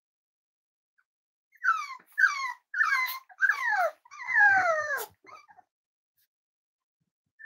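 Cavalier King Charles spaniel puppy whining: five high cries in a row, each sliding down in pitch, the last the longest, then one short faint whimper.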